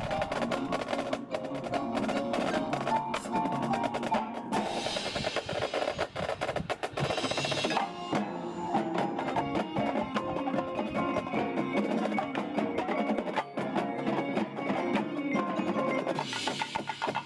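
A marching band playing, with the percussion section prominent: fast, evenly repeating drum and mallet strokes over held notes from the winds. There are two swells of bright, hissing high sound, one from about four and a half to eight seconds in and a short one near the end.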